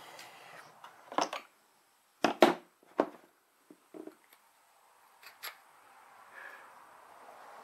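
Parts of a portable hydraulic ram kit being handled and fitted together: a handful of sharp clicks and knocks, the loudest two close together about two and a half seconds in.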